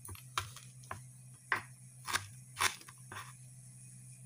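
Fresh ginger being crushed with the flat of a kitchen knife on a wooden cutting board: about seven sharp knocks at uneven spacing, roughly two a second.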